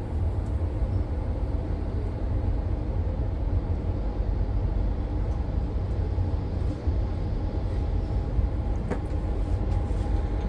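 Electric passenger train running along the line: a steady low rumble with a steady multi-tone hum over it.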